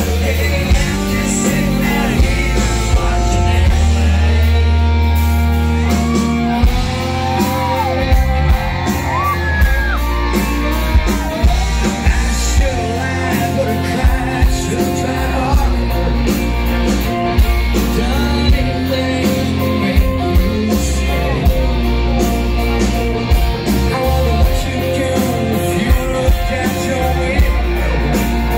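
Live country music: a male lead vocal sung over a full band, with steady bass notes and regular drum hits, played loud through a concert sound system.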